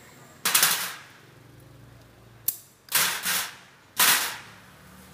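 Pneumatic impact wrench rattling in three short bursts, with a sharp click between the first and second, tightening bolts on a scooter's belt-drive cover.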